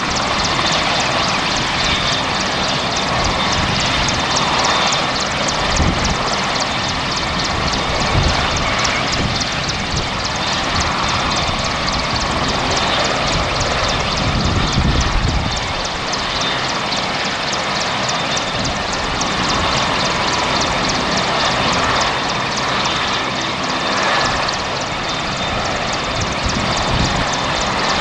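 Boeing CH-47 Chinook tandem-rotor helicopters flying low overhead: a loud, steady, rapid chop of the rotor blades over the running engines, with deeper low surges a few times.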